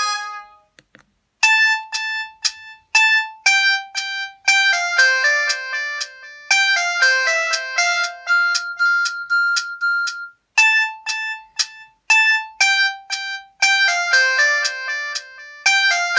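Built-in ringtone of a Samsung 1088 mobile phone: a simple electronic melody played one note at a time, each note starting sharply and dying away, its opening phrase starting over about nine seconds later. It follows the fading end of the previous tone and a pause of about a second.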